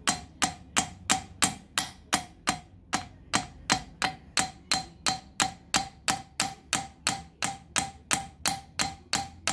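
A valve in a Yamaha 250 motorcycle cylinder head being struck over and over with a screwdriver to lap it into its seat with coarse grinding paste. The metallic taps come about three a second, steady and even, each with a short ring.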